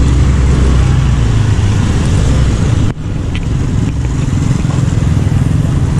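Motorcycles and scooters riding past close by, their small engines running, over general road traffic noise. A low steady engine hum stands out for the first second or so, and the sound briefly drops out about three seconds in.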